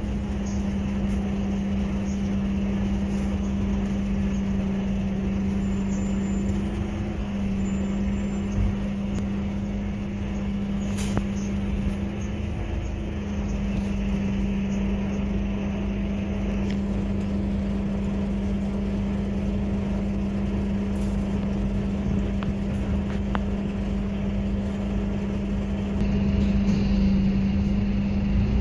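Cabin sound of a Scania KUB diesel city bus on the move: a steady low engine hum and road rumble, with a few light rattles. It grows louder a couple of seconds before the end.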